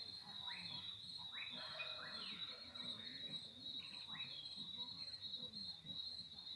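Crickets trilling steadily at one high, even pitch. Several short bird calls sound over them during the first four and a half seconds or so.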